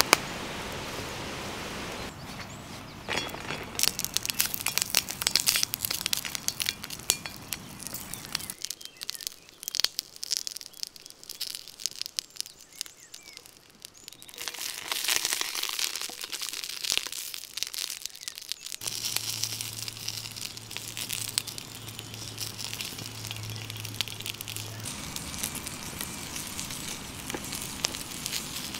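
A wood fire crackling and popping, with green pimiento peppers sizzling in a steel pan set over the flames and embers. The crackling turns quieter for a few seconds in the middle.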